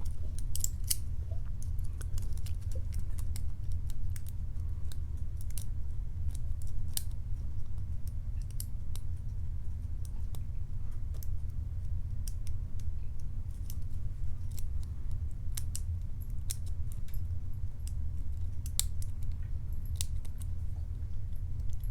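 Short hook lock pick ticking and scraping against the pins inside a Matlock 2508 padlock's keyway during single-pin picking: many small, irregular metallic clicks over a steady low hum.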